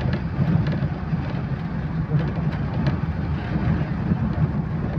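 Steady low drone of a bus's engine and tyres on the road, heard from inside the passenger cabin while the bus drives along.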